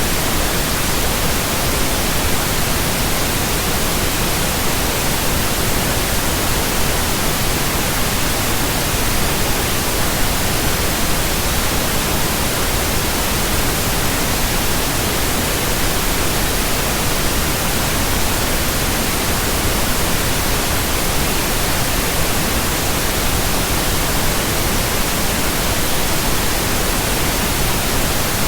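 Steady, unchanging pink noise: an even hiss spread across all pitches, generated as a relaxation and sleep sound.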